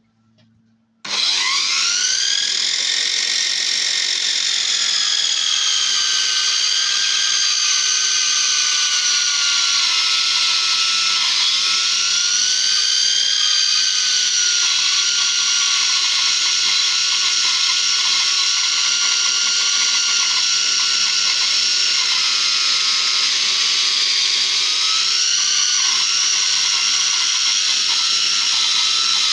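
Homemade bandsaw built from a DeWalt circular saw, its universal motor fed about 140 V from a transformer to slow the blade. It switches on about a second in, with a whine that climbs quickly, then runs steadily with the pitch wavering slightly as the blade cuts through spruce.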